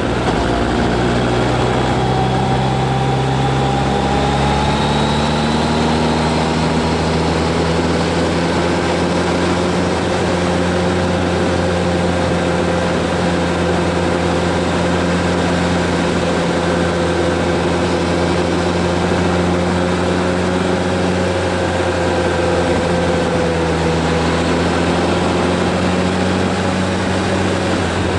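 Motorcycle engine running under steady load on a climbing road, its pitch rising over the first few seconds and then holding steady, over a constant rushing noise.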